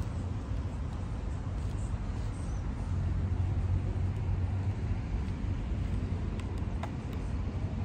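Steady road traffic rumble with one vehicle swelling louder as it passes about three seconds in, and a few faint clicks near the end.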